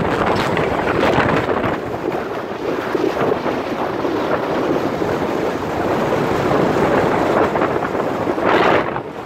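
Wind buffeting the microphone of a moving motorbike, a loud gusting rush that drops away sharply just before the end.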